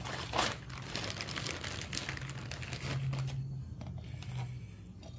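Plastic snack bag crinkling and rustling as a hand rummages in it for the last frozen pizza rolls, with a sharp tap about half a second in, over a faint steady low hum.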